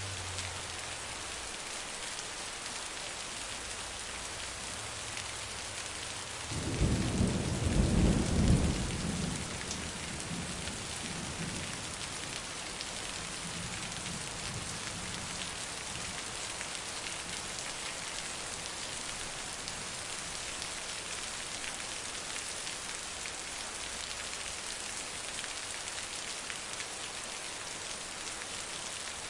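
Heavy rain falling steadily. About six seconds in, a roll of thunder rumbles low for a few seconds, loudest briefly, then fades away under the rain.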